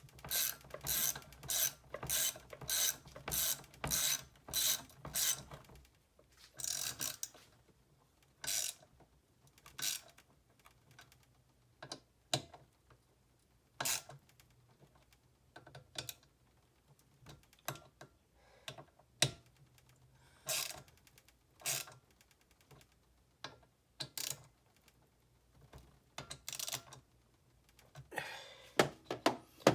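Hand tool clicking in a ratchet-like way while a leaf blower is taken apart for repair: quick strokes about two a second at first, then single clicks every second or two, with a short flurry near the end.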